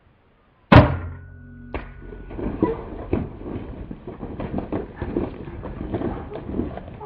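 A single loud rifle shot a little under a second in, followed about a second later by a second sharp knock. Then come the irregular hoofbeats of blue wildebeest galloping away over dry, stony ground.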